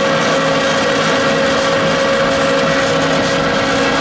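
Wood pellet mill running steadily under load, pressing sawdust into pellets: an even mechanical hum with a constant mid-pitched whine.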